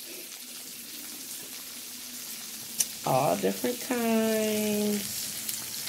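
Seafood sizzling in melted butter and sauce in a hot pot, a steady frying hiss with a sharp click just before three seconds in. About three seconds in a voice makes a short sound, then hums one held note for about a second.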